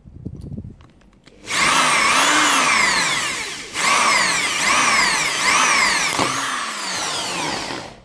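Power drill with a small bit drilling out a stripped screw in a knife's pivot, its motor whine rising and falling about once a second as the trigger and pressure vary, with a brief break in the middle. The drilling stops sharply near the end, where the drill bit snaps and flies off.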